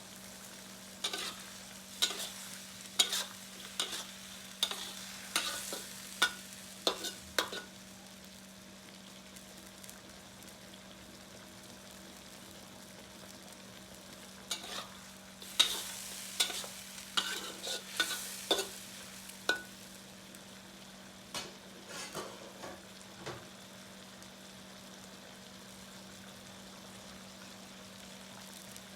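Chicken feet frying and sizzling in a pan, with a spatula stirring them and knocking against the pan about once or twice a second in two spells, the first early and the second in the middle.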